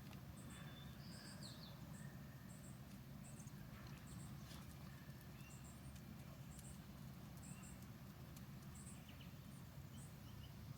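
Quiet outdoor ambience: faint, very high-pitched insect chirps repeating in short groups of two to four, with a few faint bird chirps and scattered light clicks.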